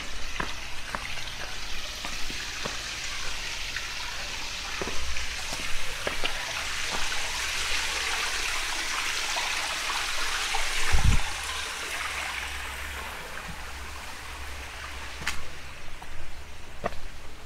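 Flowing water, swelling to its loudest midway and then fading away, with footsteps throughout and a brief low thump a little past the middle.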